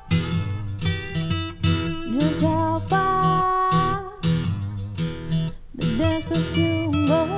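Background music: a song led by guitar, with held and gliding melody notes over a steady low beat.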